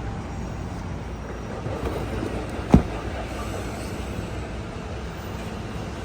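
Steady low rumbling background noise, with a single sharp knock a little under three seconds in.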